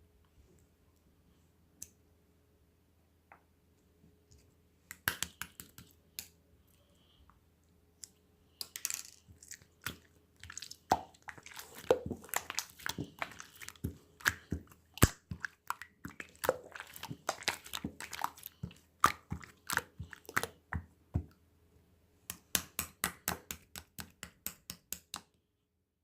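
Series of sharp clicks and taps, sparse at first, then dense and irregular, and finally an even run of about five taps a second that stops shortly before the end.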